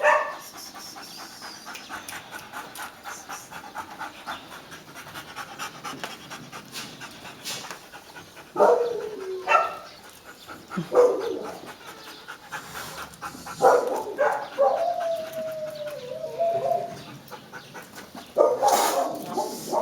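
A dog panting, then giving several short whines, one longer wavering whine about halfway through, and more short whines near the end.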